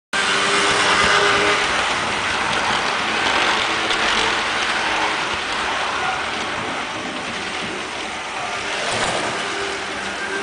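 HO-scale model passenger train running past close by: a steady whirring rumble of wheels on track and motor hum. It begins abruptly and slowly fades as the train moves away.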